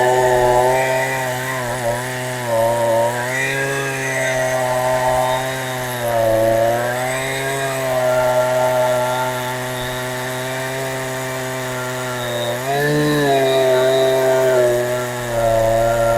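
Two-stroke engine of a Husqvarna 372XP clone chainsaw, fitted with a genuine carburettor, running fast and steady. Its pitch dips and recovers twice, once partway through and once near the end.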